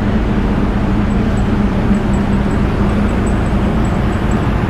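Steady loud rumble and rush from a ferry's engine exhaust outlets, with a continuous low hum, while the strong draft from the exhaust blows across the microphone.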